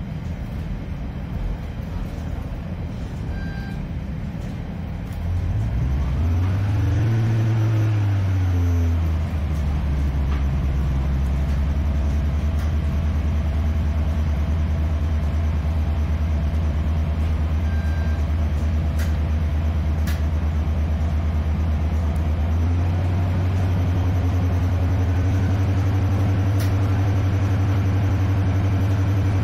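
Underfloor diesel engine of a diesel multiple unit, heard from inside the passenger coach, opening up about five seconds in with a rising pitch. It falls back at about nine seconds into a steady low drone, then steps up to a higher pitch again at about 23 seconds.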